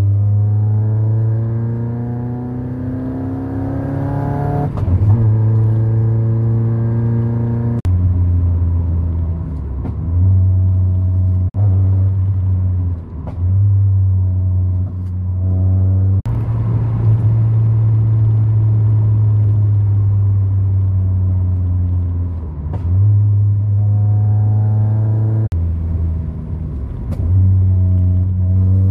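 Mazda MX-5 Miata four-cylinder engine pulling hard, heard inside the cabin. Its pitch climbs for about five seconds, then drops at a shift and holds through stretches of driving. Sharp exhaust cracks come at several points, typical of the WOT Box's ignition-cut flat shifts.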